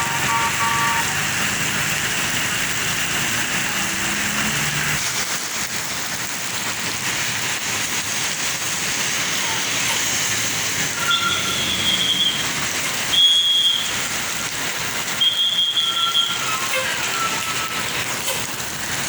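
Roadside traffic noise from passing vehicles. The end of a bus's melodic telolet horn tune sounds in the first second, and short high-pitched horn toots come several times in the second half.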